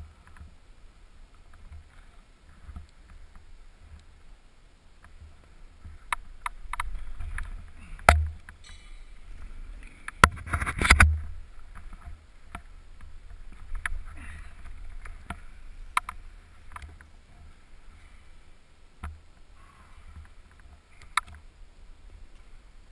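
Climbing noises on a gym wall: hands and shoes knocking and scraping against the textured wall and holds, with sharp knocks about six and eight seconds in and a louder rush of scraping and rubbing around ten to eleven seconds.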